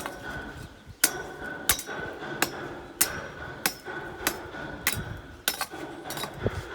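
Hammer striking metal in a steady run of about ten blows, one every two-thirds of a second, each with a short metallic ring.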